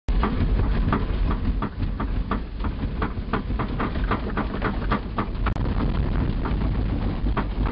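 Vehicle jolting hard over rough ground: a heavy, continuous low rumble with frequent, irregular rattles and knocks.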